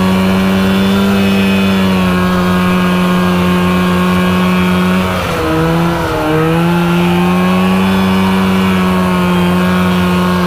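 The 400cc two-stroke engine of a 1970s mini off-road tank runs steadily at a constant speed. About halfway through, the revs drop briefly and waver, then pick back up and hold steady again.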